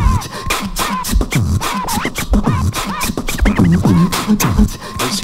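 Hip-hop intro music with a steady beat and scratching.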